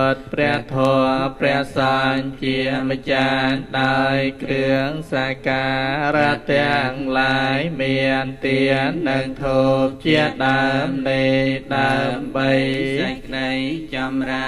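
Theravada Buddhist Pali chanting led by a monk: verses offering homage to the Buddha, Dhamma and Sangha, recited quickly on a near-level pitch with brief breaths between phrases.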